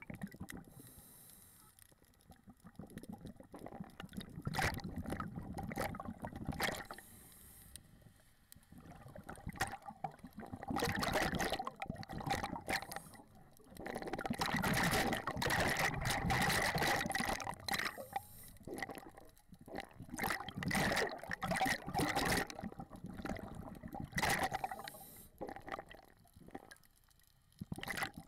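Water bubbling and rushing around the camera in irregular surges a few seconds long, separated by quieter gaps.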